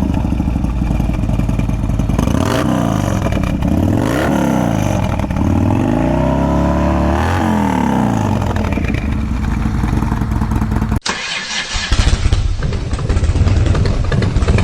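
Harley-Davidson Dyna Low Rider S V-twin (Twin Cam 110) running through a Bassani Road Rage 2-into-1 exhaust, revved several times with the revs rising and falling. After a sudden break about eleven seconds in, the engine runs on more evenly.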